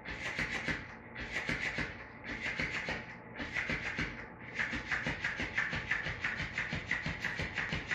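Flopping fish cat toy flapping its tail against a tile floor: a rapid run of slaps, about six a second. They come in bursts of about a second with short pauses, then run on without a break from a little past halfway.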